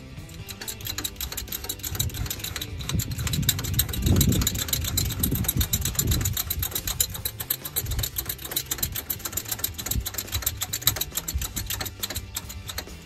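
A motor engine running, with a rapid mechanical clicking over it. It swells louder with rising and falling pitch about four seconds in, then settles back.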